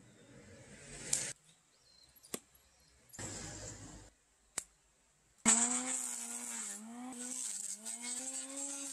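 Electric hand planer starting abruptly and cutting along the top of a log, its motor tone dipping and recovering as the blades bite into the wood. Before it, a few short handling noises and two sharp clicks.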